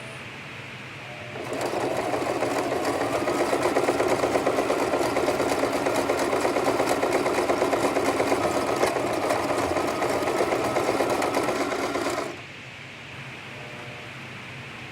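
Sewing machine running at a steady, fast stitch as it sews two hair wefts together into a doubled track. It starts about a second and a half in and stops about two and a half seconds before the end.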